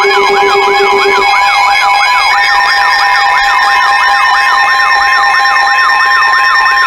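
Layered siren and alert tones: a fast wailing glide repeating about three times a second over several steady alarm tones, with a low tone dropping out about a second in and a higher one joining a little later.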